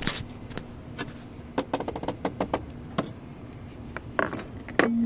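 Irregular sharp clicks and taps as the toothed locking ring of a Toyota Hilux diesel fuel filter housing is levered round notch by notch with the car's wheel wrench, with a quick cluster of them in the middle.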